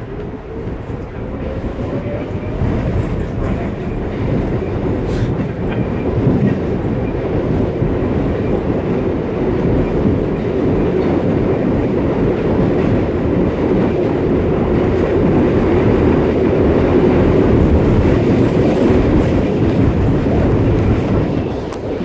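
New York City subway train running, heard from inside the car: a motor whine rises in pitch over the first few seconds as it gathers speed, then gives way to a loud, steady rumble of the wheels on the track that slowly grows louder.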